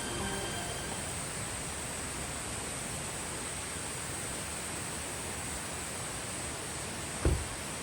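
Mountain stream rushing steadily, with a continuous high-pitched chorus of insects over it. A single dull thump sounds near the end.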